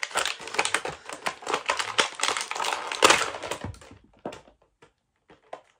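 Clear plastic packaging crinkling and crackling as an action figure is worked out of it by hand: a dense run of crackles for about three and a half seconds, then only a few scattered crackles.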